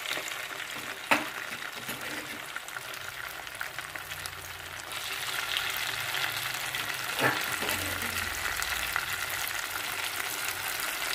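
Ground chili paste of chilies, shallots and garlic sizzling in hot oil in a frying pan, a steady spitting hiss that grows a little louder about halfway through. Two sharp ticks stand out, about a second in and about seven seconds in.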